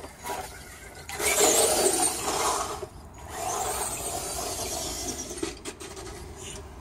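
Electric RC truck with a 550 Titan 12-turn brushed motor driving off at speed: motor whine mixed with tyre noise over concrete and dry grass. It is loudest from about one to three seconds in, then comes a second, quieter run that fades toward the end.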